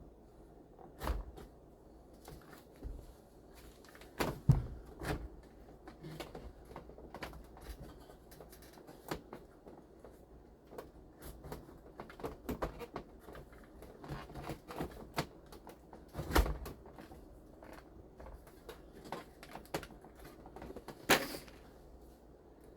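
Irregular clicks, taps and knocks of parts being handled while a radio unit is fitted into a dashboard, with a few louder thumps: one about a second in, two around four to five seconds, one around sixteen seconds and one near the end.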